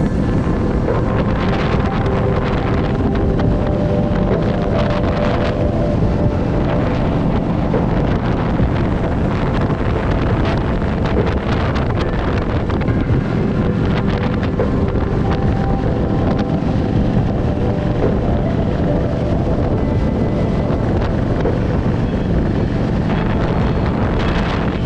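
Heavy wind rush on the microphone from riding a Harley-Davidson motorcycle, with its V-twin engine running steadily underneath.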